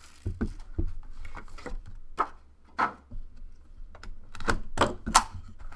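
Hands handling a shrink-wrapped cardboard trading-card box: two low thumps in the first second as boxes are moved on the table, then scattered sharp clicks and taps, loudest in a quick cluster near the end as the wrap's tear strip is worked.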